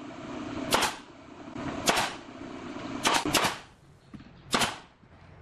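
JOK pneumatic nail gun firing nails into wooden slats. A string of sharp shots roughly a second apart, with a quick pair just past the middle.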